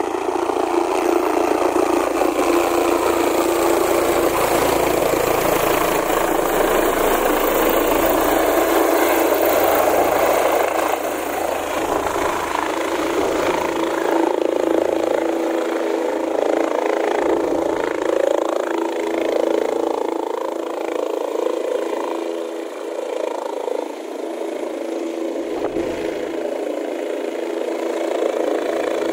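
Single-rotor helicopter flying low and hovering close by: a loud, steady drone of turbine and rotor that eases a little about a third of the way through.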